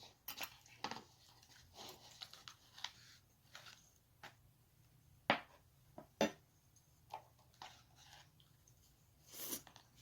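Faint, scattered clicks and taps of utensils against dishes as a meal of rice noodles and shrimp balls is handled, a dozen or so light knocks with pauses between them.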